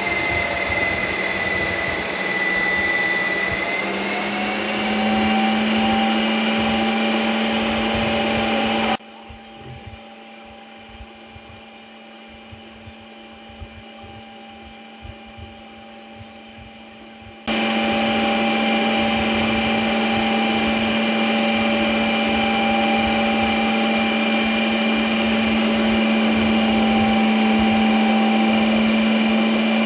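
Ninja Creami running its ice cream program: the motor spins the blade down through a frozen pint, giving a steady hum with a high whine whose pitch steps up about four seconds in. For several seconds in the middle it drops much quieter, then returns at full level.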